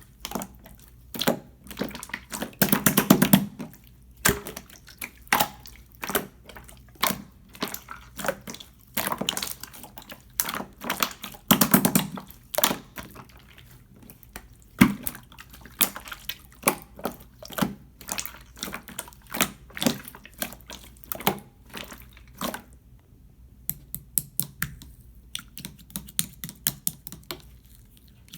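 Clear slime being squished and pressed by hand: a string of sticky clicks, pops and wet squelches, with denser bursts of squishing about three and twelve seconds in.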